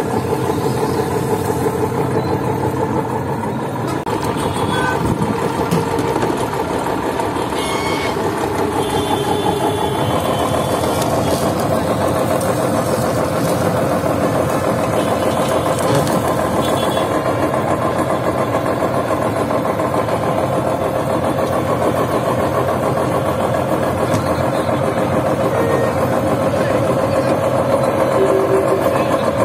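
Motor-driven sugarcane juice crusher running steadily, its engine turning the steel rollers through a belt as cane is pressed. Its hum steps up slightly in pitch about a third of the way in.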